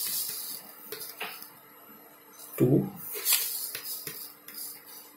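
Measuring spoon scooping granulated sugar from a glass jar and tipping it into a plastic tub: several short scrapes and clinks against the jar, with the rustle of pouring sugar.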